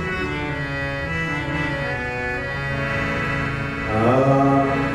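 Harmonium playing a melody of held, reedy chords. A man's singing voice comes in about four seconds in, over the harmonium.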